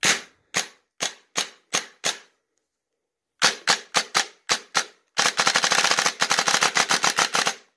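Airsoft electric gun, a 416 with an 18:1 dual-sector-gear gearbox, Ronin 30K brushless motor and Lonex helical pinion and bevel gears, firing: two strings of about six single shots each, then a rapid burst of about two seconds near the end. Its owner calls the gearbox super quiet.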